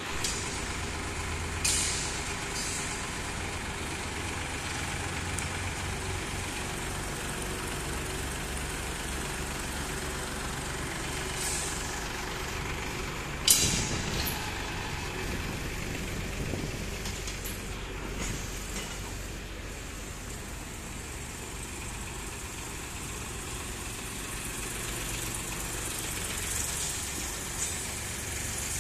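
Massey Ferguson 7250 DI tractors' three-cylinder diesel engines running steadily, with a few sharp knocks, the loudest about halfway through.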